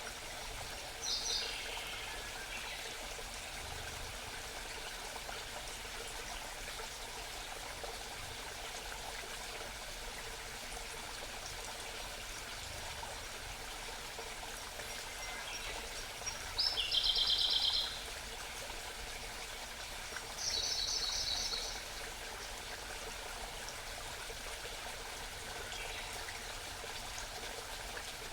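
Small mountain stream trickling and babbling steadily. A songbird gives short, rapid high-pitched trills three times: about a second in, loudest a little past halfway, and once more a few seconds later.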